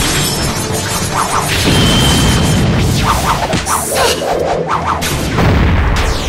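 Fight-scene sound effects over dramatic background music: whooshes and crashing impacts, building to an explosion near the end.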